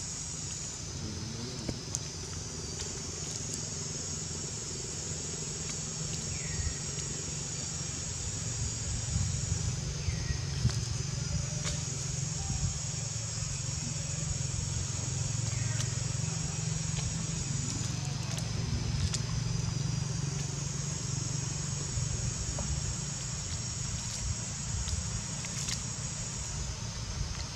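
A high, steady chorus of insects droning in the trees, dropping out twice for a moment and starting up again, over a low steady rumble.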